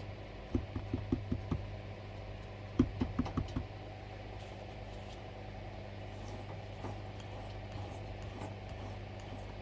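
Old Hickory knife blade stroked over a wet sharpening stone: a quick run of light knocks in the first few seconds, then faint repeated scraping strokes over a steady low hum.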